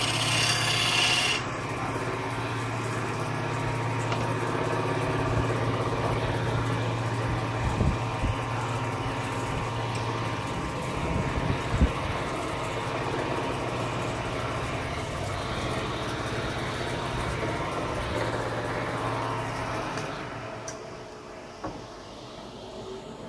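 Motor-driven wood lathe running with a steady hum while a hand chisel cuts the spinning wooden spindle, a bright scraping hiss strongest in the first second or so. The sound grows quieter near the end.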